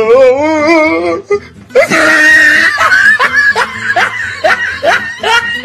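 A voice wailing with a wavering, shaky pitch, then a loud scream about two seconds in, followed by a string of short, rising cries.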